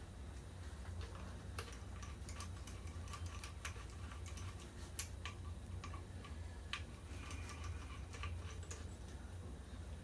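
Light, irregular metallic clicks and ticks of hand tools on loosened transmission fasteners, over a steady low hum.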